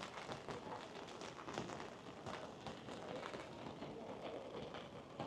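Steady rain falling on pavement, with many irregular taps and splashes.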